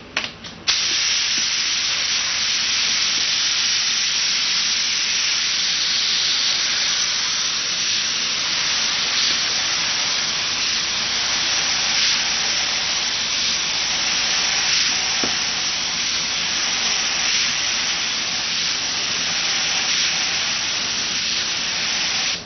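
Gravity-feed paint spray gun hissing steadily with compressed air as it lays a quick tack coat of single-stage paint. The hiss starts about a second in, after a few short clicks, and runs on unbroken.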